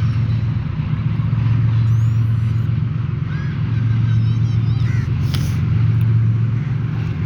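Diesel-electric locomotive working under load with a goods train: a steady, loud low engine drone, with a few short high-pitched calls and a brief noisy burst about five seconds in.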